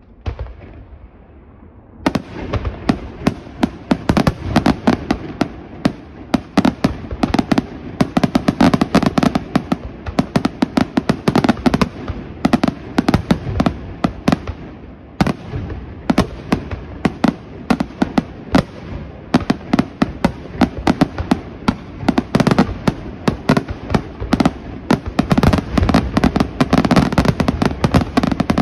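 Aerial fireworks display shells going off. After a brief lull with a single bang, a dense barrage of rapid, overlapping bangs and crackles sets in about two seconds in and keeps going without pause.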